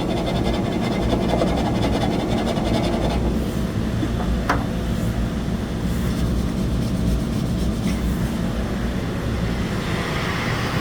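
A vehicle engine running steadily with a low hum, and a fast, even clatter over the first few seconds. A single sharp tick comes about halfway through.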